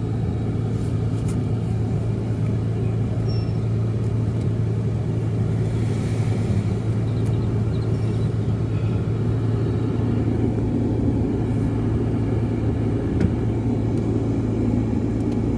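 Steady low engine and road rumble of a car, heard from inside the cabin, growing a little stronger in the second half.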